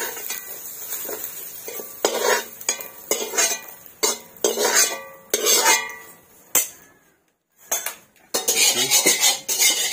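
Metal ladle scraping fried potato and soya chunks out of a wok and knocking them into a steel bowl, in a string of separate scrapes and clinks. After a short break near the end, steel dishes and utensils clatter rapidly.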